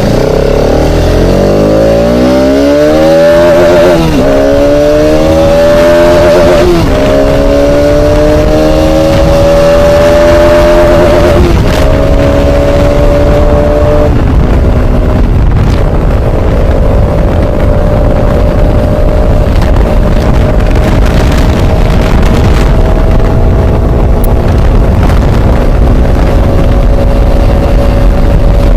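Bajaj Pulsar RS 200's single-cylinder engine accelerating hard through the gears: the engine pitch climbs, drops suddenly at each upshift three times, then holds a steady high pitch at cruising speed with a rushing noise over it.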